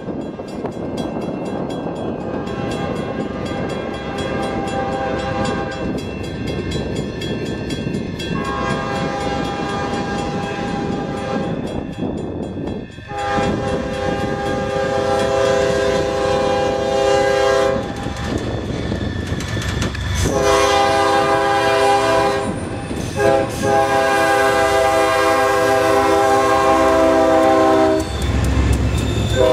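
CSX diesel freight locomotive approaching and passing, sounding its multi-tone air horn in a series of long blasts that grow louder about halfway through. Engine and wheels on the rails rumble underneath.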